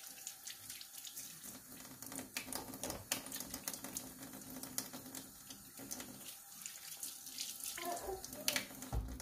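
Kitchen tap running into a sink while hands are rubbed and rinsed under the stream, with irregular splashes on top of a steady hiss.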